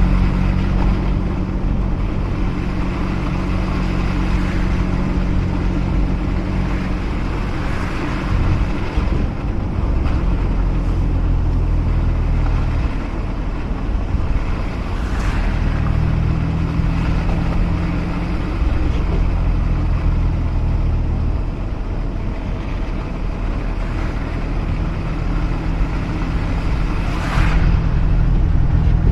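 Mazda RX-8's twin-rotor Wankel rotary engine running over steady tyre and road noise, its drone holding and then shifting pitch several times as engine speed changes. Two brief hisses rise over it, one about halfway through and one near the end.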